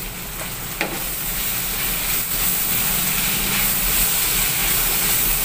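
Anchovies, tofu and green chillies sizzling steadily in a frying pan as a wooden spatula stirs them through the sambal, with one short click a little under a second in.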